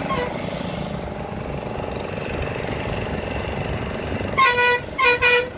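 A vehicle horn honks three short times about four and a half seconds in, the second and third blasts close together. Underneath is the steady running noise of a moving vehicle.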